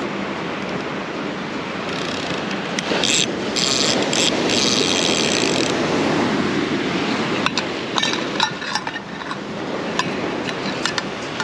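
Ocean surf washing onto the shore, with a louder hissing rush about three seconds in that lasts a couple of seconds. Scattered light clicks and clinks come in the second half.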